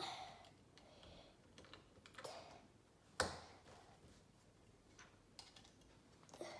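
Lego bricks being handled and pressed together: a few faint, sharp plastic clicks and rattles, the loudest about three seconds in.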